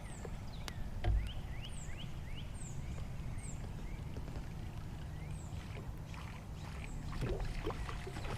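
Steady low rumble of open-air noise around a small boat, with birds chirping in many short, quick high notes throughout and a single bump about a second in.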